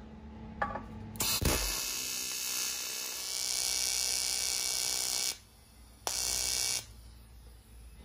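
TIG welding arc on the aluminium of a cracked alloy wheel, from a cheap single-phase TIG welder: a steady buzzing hiss. It strikes with a click a little over a second in and runs about four seconds, then breaks off and strikes again for under a second.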